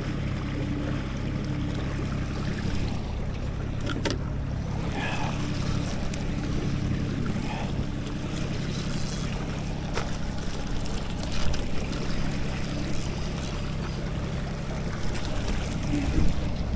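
Small boat's motor running steadily at trolling speed, a low even hum over a wash of noise, broken by a few short sharp knocks, most of them in the second half.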